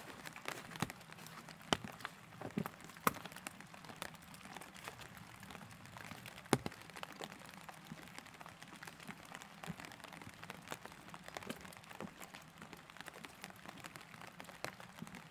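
Light rain falling steadily, with irregular sharp taps of drops landing close by.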